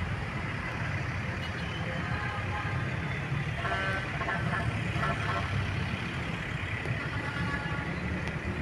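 Steady rumble of road traffic passing nearby. Faint distant voices come through briefly in the middle.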